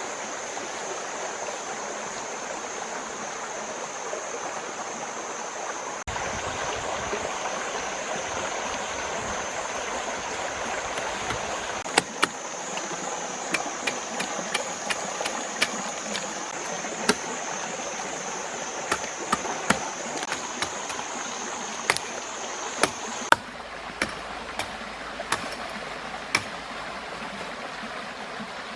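Steady rush of flowing stream water, with a steady high whine that cuts off suddenly about four-fifths of the way through. Scattered sharp clicks and knocks come in from about the middle on.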